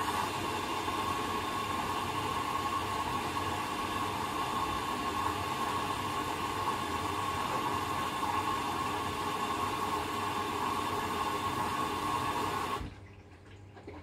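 Hoover DXOA69HC3B washing machine taking in water at the start of its wash, a steady rushing hiss of water filling the machine. It cuts off suddenly near the end as the inlet valve closes.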